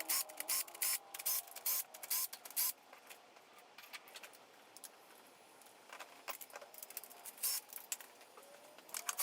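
Scattered sharp metallic clicks and clinks of hand tools and small engine parts being handled, busiest in the first few seconds and again a little past the middle, with a quieter stretch between.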